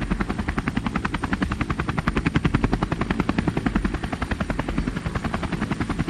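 Army helicopter flying at a steady speed: the rotor blades give a fast, even chop over the low engine sound, holding steady throughout.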